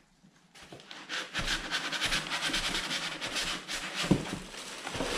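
Packaging rustling and rubbing as a polystyrene foam block is worked loose from inside a cardboard box, starting about a second in as dense crackling, with a soft knock near the end.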